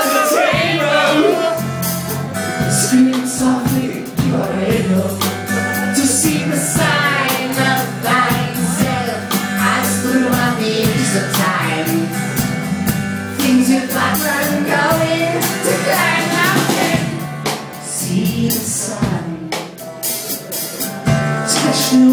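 Live band performance: a man singing over acoustic guitar, bass guitar and drums.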